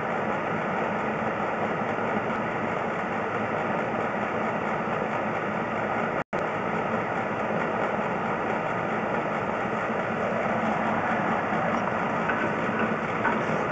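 Steady mechanical running noise, a low hum under an even hiss, that cuts out completely for an instant about six seconds in.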